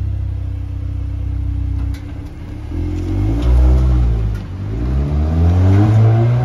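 Volkswagen Golf R's 2.0-litre turbocharged four-cylinder engine idling steadily, then revving up and down several times from about two and a half seconds in as the car pulls away.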